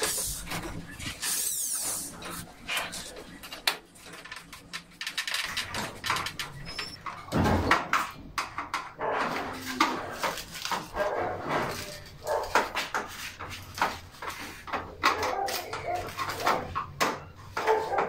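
Scattered taps, knocks and clicks of hand tools and hardware on an aluminium sliding-door frame being fitted, with a dog barking at times from about seven seconds in.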